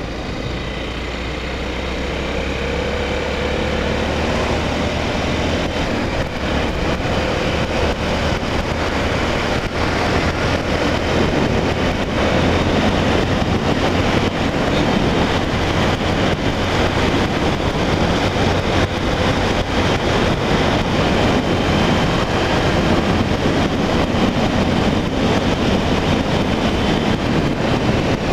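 Honda Tornado 250's single-cylinder engine running under way, with wind rushing over the rider's microphone; the engine pitch rises over the first few seconds as the bike gathers speed.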